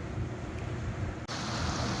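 Boat motor running with a steady low rumble under wind and water noise. A little past halfway it cuts abruptly, after a brief dropout, to a louder hiss of wind and rushing water.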